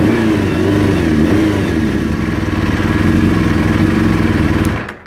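Kawasaki ZX750 inline-four motorcycle engine running steadily, wavering a little in pitch in the first second or two, then stopping near the end. Its second-hand carburettors are not yet synchronised.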